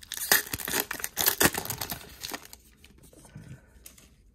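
Foil trading-card pack being torn open, the wrapper crinkling and crackling for about two and a half seconds, then fainter rustles and clicks of cards being handled.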